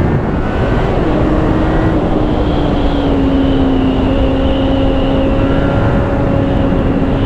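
Suzuki GSX650F's inline-four engine running under way at steady revs, its note easing down slightly in the first two seconds and then holding. Heavy wind rumble on the microphone.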